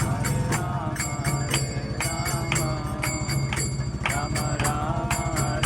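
Devotional chant music: singing over a steady beat of ringing metal hand cymbals.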